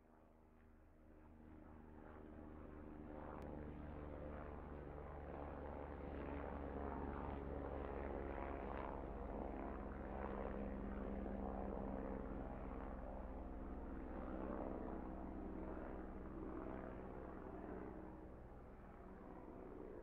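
Helicopter in flight: a steady engine-and-rotor drone made of several held tones, growing louder over the first few seconds and then holding steady.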